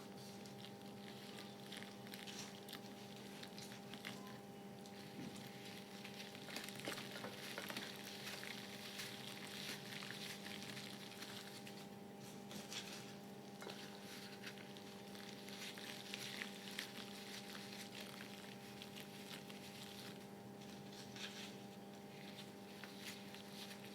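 Gym chalk soaking in water, crackling and fizzing with dense tiny pops. A steady low hum runs underneath.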